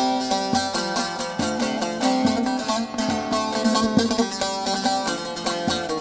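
Instrumental introduction of a Kurdish folk song: a plucked string instrument plays a fast melody of quick repeated notes, with a low thud about once a second underneath.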